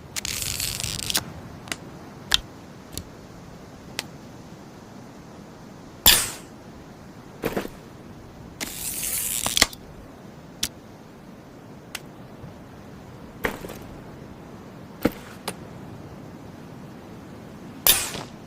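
Tactical crossbow sounds: a string of separate sharp snaps and mechanical clicks, the loudest about six seconds in and near the end, with two longer noisy sounds about a second each, one at the start and one about nine seconds in.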